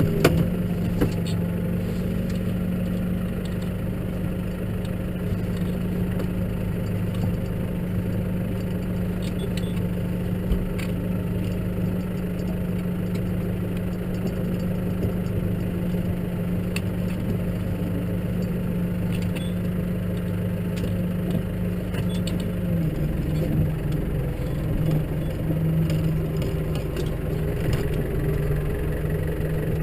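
Case tractor's diesel engine running steadily under way. Its pitch dips just at the start and picks up again near the end, with a few light knocks along the way.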